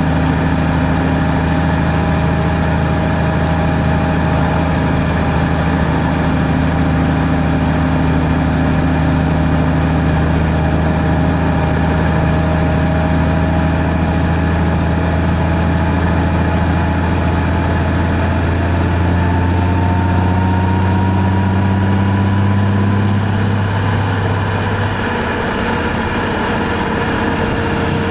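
Car engine running steadily with road noise while driving, with a faint whine slowly rising in pitch; the engine note changes about 25 seconds in.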